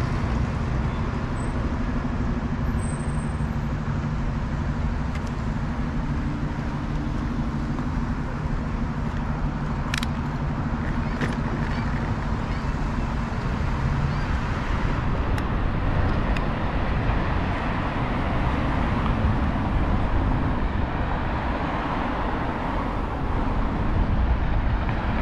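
City street traffic heard from a bicycle: cars running past along the road, with a steady low hum through the first half and a couple of sharp clicks about ten seconds in.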